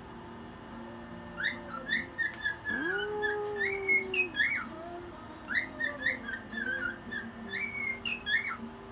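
Pet cockatiel singing: a run of short, rising whistled chirps that starts about a second and a half in, with one longer, lower whistle held briefly around the middle.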